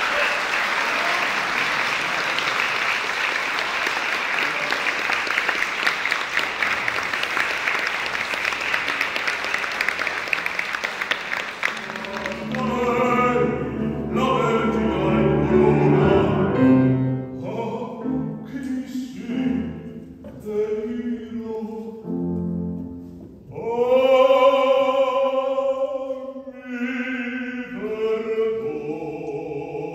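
An audience applauds for about twelve seconds. Then a man begins singing operatically, accompanied on a grand piano, in phrases that rise and break off.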